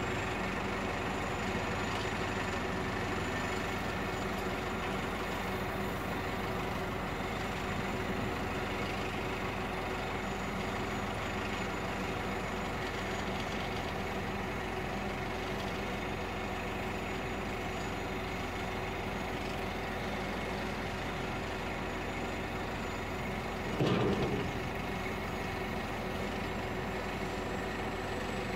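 Hydrema 912ES articulated dump truck's diesel engine running steadily as the truck creeps along the track, with one brief louder noise about four seconds before the end.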